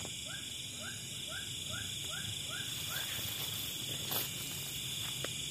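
Night insect chorus of crickets droning steadily at a swamp's edge. Over the first three seconds a run of short rising chirps repeats about twice a second. A brief soft knock comes about four seconds in.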